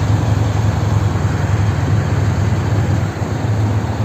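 Motorcycle running at a steady speed: a constant low engine drone under an even haze of wind and road noise.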